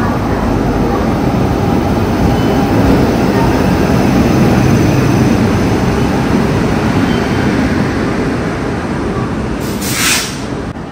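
Passenger train running on the rails: a steady rumble of wheels and coaches, with a brief hiss just before the end.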